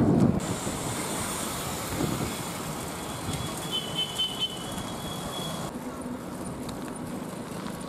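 Road traffic noise, with motorbikes and other vehicles running on a small-town road. There is a brief high chirp near the middle, and a steady low engine hum in the last two seconds.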